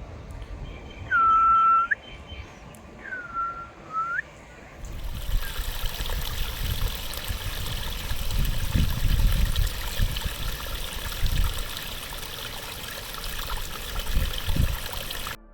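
Two clear whistled calls, each about a second long, over a low rumble. About five seconds in, the sound changes suddenly to a steady rush of wind and surf, with gusts of wind on the microphone.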